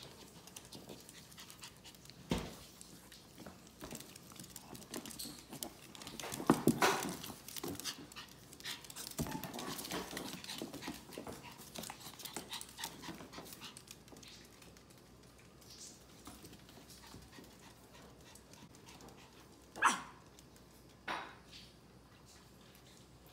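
A chihuahua panting and scuffling in rough play with a capuchin monkey, with a few sharp knocks from their tussling. The busiest stretch comes in the middle, and two sharp knocks come near the end.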